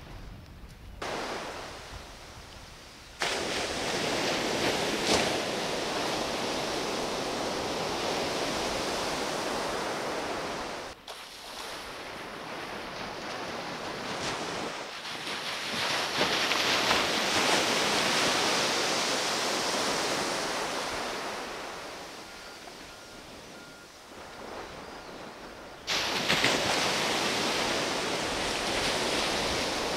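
Surf washing onto a beach, a steady rushing noise that swells and fades as the waves come in. Its level jumps abruptly a few times.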